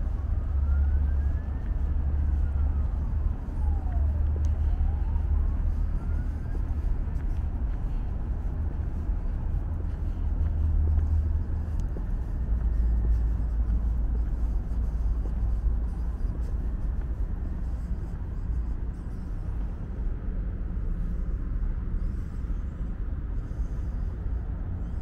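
An emergency vehicle's siren wailing, slowly rising and falling in pitch over a few seconds each way and fading out about seven seconds in, over a steady low rumble.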